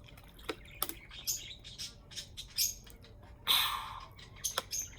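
Pet birds chirping in short, scattered calls, with one louder, harsher burst about three and a half seconds in.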